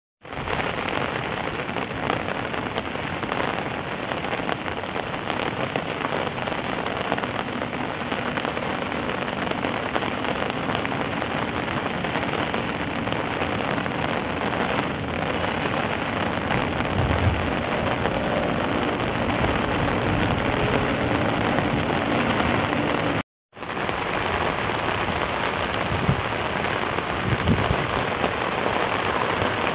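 Steady rain falling on wet pavement, an even hiss that breaks off for a moment about two-thirds of the way through, with a few dull low thumps in the second half.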